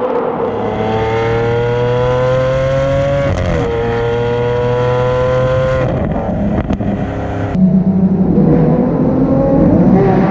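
Straight-piped V12 of a 2016 Lamborghini Aventador SV accelerating hard. The engine note climbs, dips briefly at a gearshift about three and a half seconds in, and climbs again. It breaks off at about six seconds, and from about seven and a half seconds a duller, lower engine note rises again.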